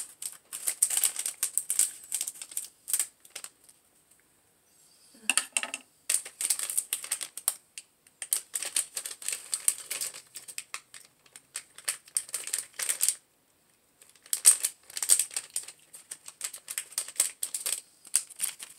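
Foil blind-bag wrapper crinkling and rustling in dense bursts of sharp crackles as it is cut with scissors and pulled apart by hand, with two short pauses.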